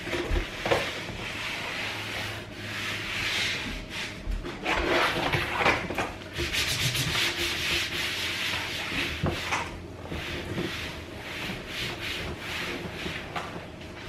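Paper napkins wiped back and forth across a folding table top, making repeated rubbing strokes.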